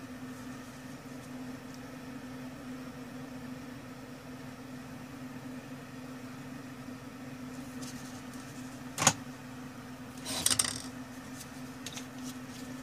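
Homemade BGA rework station running with a steady hum, while a graphics card sits on its preheater. About nine seconds in there is a single sharp click, followed a moment later by a brief rattle.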